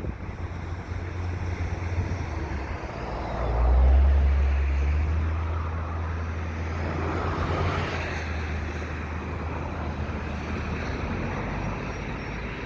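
Deep, steady diesel engine rumble, likely a train passing near the overpass, swelling to its loudest about four seconds in and then easing off, over a rushing haze of wind and traffic noise.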